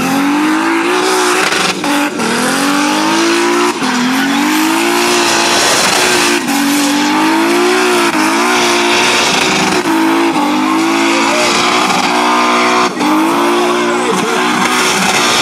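Turbocharged BMW E30 engine held at high revs in a burnout. Its pitch wavers up and down, with brief dips every couple of seconds as the throttle comes off. Under it runs the steady squeal and hiss of spinning tyres.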